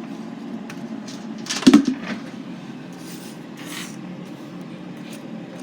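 A single short knock about a second and a half in, over a steady low hum and a few faint clicks.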